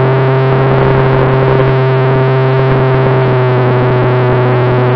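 RC model aircraft's motors making a steady, loud drone, the pitch sinking slightly as the plane rolls along the runway.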